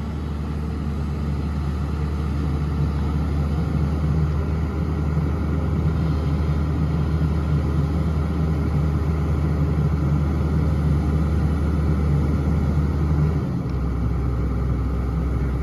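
Crawler excavator's diesel engine running steadily with a low hum; its low note drops slightly about three-quarters of the way through.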